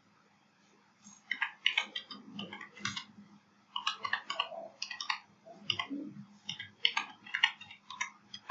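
Computer keyboard being typed on: quick, uneven key clicks, starting about a second in.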